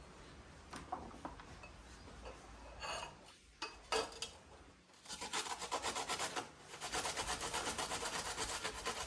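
Fresh ginger grated on the fine side of a hand grater: after a few light knocks of handling, quick rhythmic rasping strokes start about halfway through, several a second.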